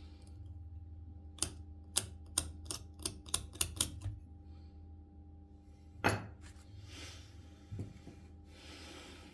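A quick run of sharp clicks, about eight in two and a half seconds, then two louder knocks and some rustling, like small hard objects being handled on a workbench. A steady electrical hum runs underneath.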